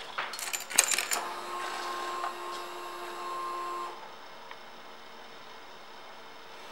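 Clicks and a jingle of keys as the ignition of a 2013 Kawasaki Ninja 1000 is switched on. About a second in, a steady electric whir starts and runs for about three seconds before stopping: the fuel pump priming before the engine is started.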